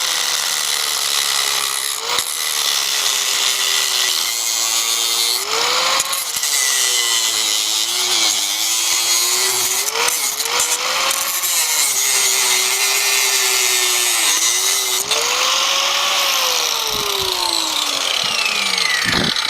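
Angle grinder cutting through a metal crutch tube, its motor pitch dipping and recovering as the disc bites under load. Near the end it is switched off and winds down with a falling whine.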